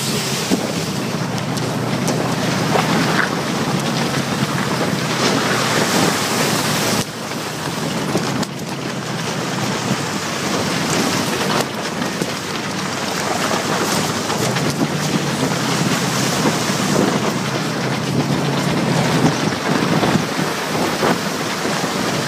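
1998 Jeep Grand Cherokee (ZJ) driving through mud puddles on a dirt trail: muddy water splashing against the body and windshield over the running engine, with wind on the microphone.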